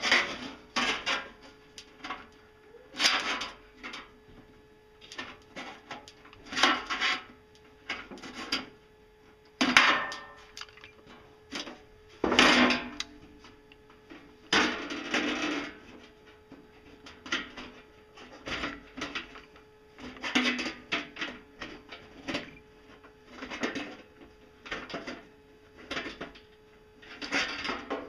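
Hand-held aviation tin snips cutting thin sheet metal: irregular bursts of crunching snips and metallic clatter as the sheet is cut and flexed, one about every second or two.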